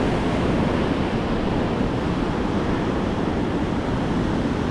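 Ocean surf breaking and washing over shoreline rocks, a steady rushing wash of water.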